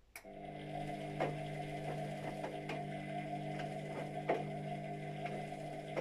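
Luxor WM 1042 front-loading washing machine's motor starting up after a pause in the wash and turning the drum with a steady hum. A few knocks come about every one and a half seconds as the drum turns.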